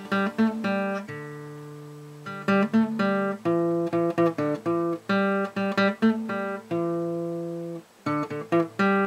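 Background music on acoustic guitar: plucked notes and chords, some ringing on for a second or more as they fade.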